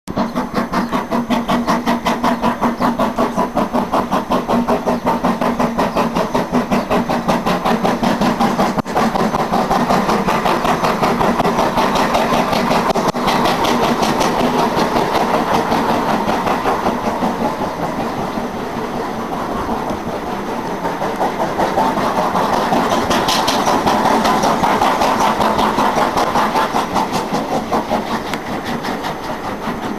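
GWR King class four-cylinder 4-6-0 steam locomotive 6024 King Edward I hauling a train, with a steady, rapid rhythmic beat.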